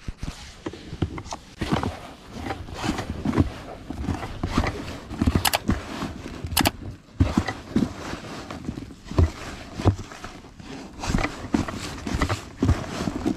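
Hands kneading and stirring damp, sticky groundbait in a bucket while dry mix is worked in: irregular rustling and crunching with soft thumps.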